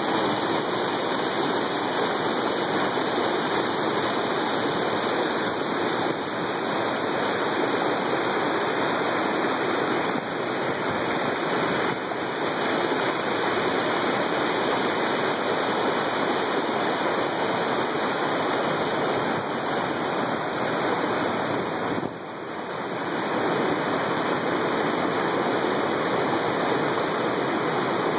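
High, muddy river water rushing over rocks and down a small waterfall: a steady, even rush of whitewater, briefly quieter about three-quarters of the way through.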